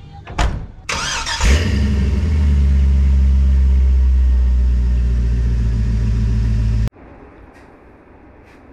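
5.3 LS V8 of a Chevy C10 pickup firing up with a quick rev, then idling steadily and loud through mid-length headers and Flowmaster Super 10 mufflers. The engine sound cuts off suddenly about seven seconds in, leaving faint room tone.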